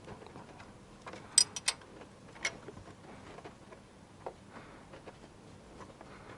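A few light metallic clicks and clinks from a 15 mm wrench working the nut of the engine's timing belt tensioner roller to loosen it. A small cluster of ringing clinks comes about a second and a half in, with single clicks later.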